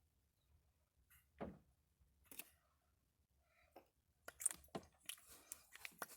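Quiet handling of small objects: a soft knock about a second and a half in, a single click a second later, then a run of small clicks and rustles near the end.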